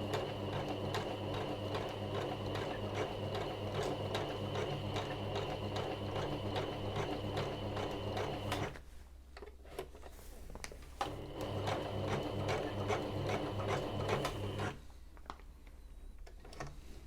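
Janome MyExcel 23X (MX3123) sewing machine stitching a zigzag, running with a steady rhythmic beat. It stops about nine seconds in, runs again for a few seconds, and stops again. It is not running smoothly and doesn't sound healthy, like a machine that has had a very hard life.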